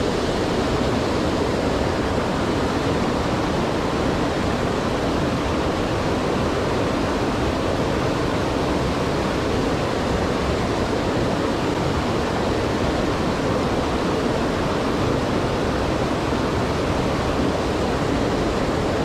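Rushing stream water, a steady, even hiss with no breaks.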